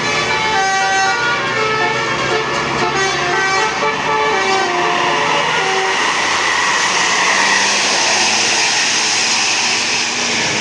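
A multi-tone basuri musical bus horn plays a tune of short stepped notes. About halfway through, a steady loud rushing vehicle noise takes over.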